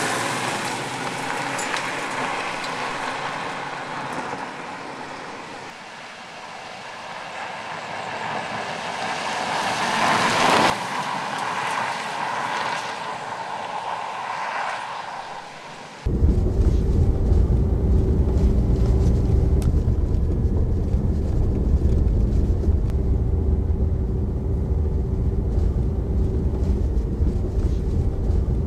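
Opel Mokka X compact SUV driving by on a gravel track, its tyres crunching over the gravel along with the engine, swelling as it passes about ten seconds in. From about sixteen seconds in, the steady low rumble of engine and road noise inside the cabin.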